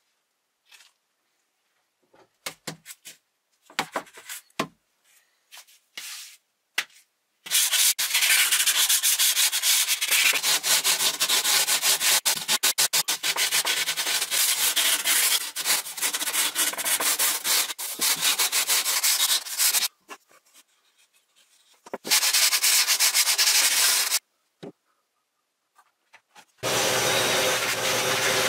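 Pink foam core being hand-sanded with P180 sandpaper: dry scratchy rubbing in quick strokes, with a short break about two-thirds of the way through. Light scattered handling clicks come before it, and a steady noise of another kind starts near the end.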